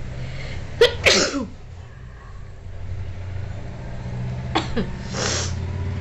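A woman sneezing hard, once, about a second in: a sharp catch of breath and then a loud burst that falls in pitch. She is setting the sneezes off by tickling inside her nostril with a thin strip. About four seconds later comes a weaker catch and a breathy rush of air, over a low steady hum.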